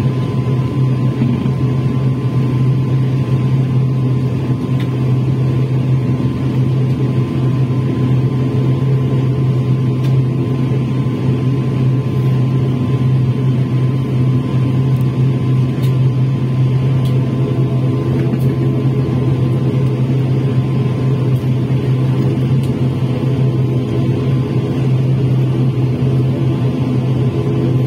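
ATR 72 turboprop's engines and six-blade propellers running steadily while the aircraft taxis, heard from inside the cabin as a loud, even low drone with a faint steady whine above it.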